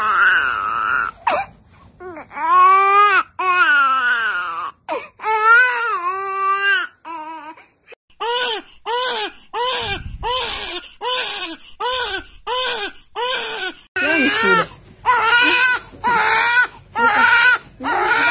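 Newborn babies crying: long wails that rise and fall in pitch, then short cries repeated about twice a second, and towards the end more uneven cries.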